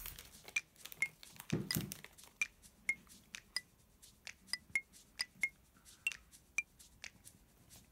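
Light background music of short, bell-like plinking notes at changing pitches, about two a second, with one dull thump about one and a half seconds in.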